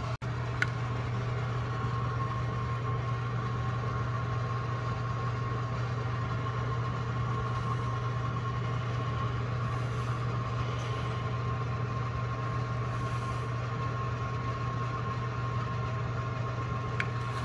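Steady hum of an oven's fan running, with a constant faint whine over it. There is a light click about half a second in and another near the end.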